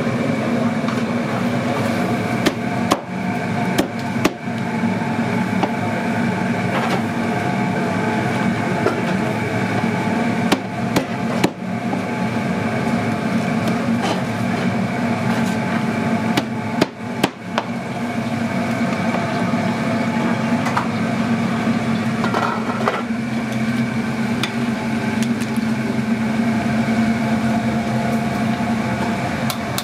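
Steady hum of commercial kitchen machinery, with a few sharp knocks, mostly in pairs, of a cleaver chopping jerk chicken on a plastic cutting board.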